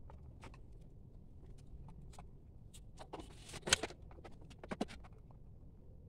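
PVC pipe and plastic fittings being handled and worked into a small plastic box: scattered light clicks and taps, a short scrape a little after halfway ending in the loudest tap, then two more taps about a second later.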